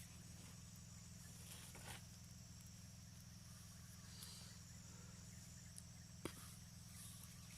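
Near silence: faint steady background hiss and low hum outdoors, with a couple of faint ticks.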